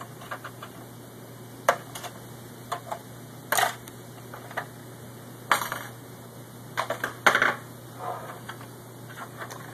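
Irregular clicks, taps and short rattles of a screwdriver and hard plastic Xbox 360 case parts being handled and pried. There are about a dozen of them, with a few longer clattering rattles spread through the middle.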